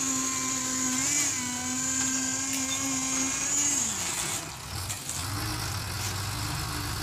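Engines running: a steady, high-pitched engine whine that wavers about a second in and falls away about four seconds in, then a lower diesel rumble, a dump truck's engine, comes in about five seconds in.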